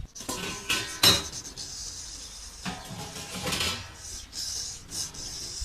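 A traditional barber's metal tools clinking, with one sharp loud clink about a second in, followed by irregular scraping strokes.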